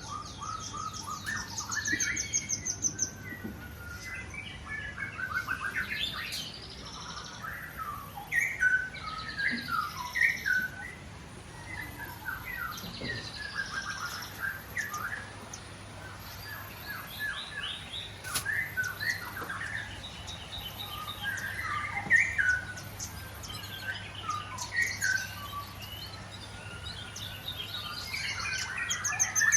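Caged white-rumped shamas singing and calling together: many overlapping chirps, whistled phrases and quick trills.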